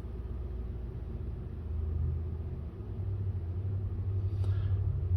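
A low, steady rumble that gets louder about two seconds in and again near the end.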